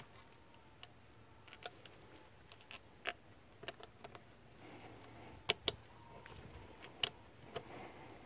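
Irregular sharp clicks and ticks as fuel hoses are pushed onto a new diesel fuel filter and their hose clamps fitted, with two louder clicks close together about halfway through.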